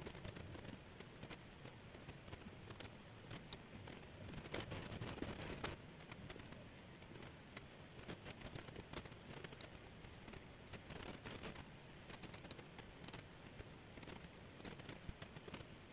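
Small wooden jigsaw pieces clicking and rustling as hands sift and spread them over a table: a faint, dense patter of light clicks, busier about four to six seconds in.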